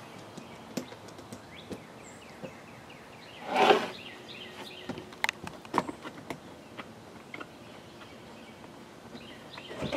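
Scattered light clicks and knocks of a plastic vehicle trim panel and a screwdriver being handled on a plywood bench, with one brief louder rustle a little past halfway as the panel is lifted and turned.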